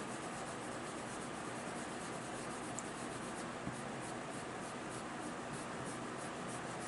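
Prismacolor colored pencil scratching on paper in short, quick, repeated flicking strokes while shading.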